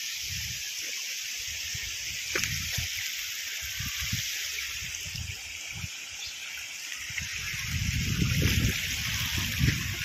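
Water running over rocks in a shallow stream: a steady rushing hiss, with irregular low rumbles that grow strongest toward the end.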